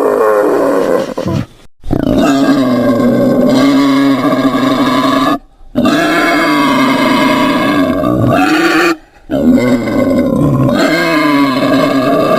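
Wild boar calling in long, drawn-out, pitched cries of about three seconds each, split by short silent breaks.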